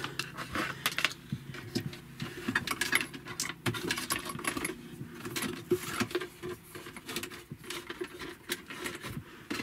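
Hands handling cables and hardware around an inverter: irregular small clicks, taps and rattles, over a faint steady hum.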